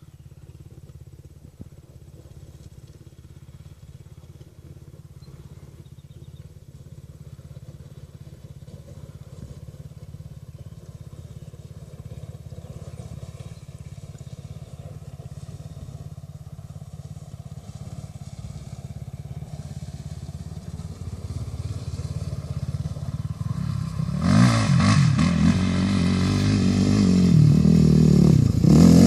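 Kawasaki KFX450 quad's single-cylinder four-stroke engine, faint and distant at first, growing steadily louder as it comes closer. Near the end it is loud and close, revving up and down.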